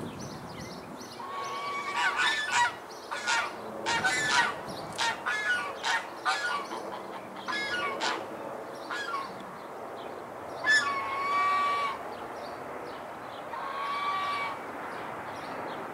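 Birds calling: a run of short pitched calls, close together through the first half, then one longer drawn-out call about eleven seconds in and another shorter one near the end.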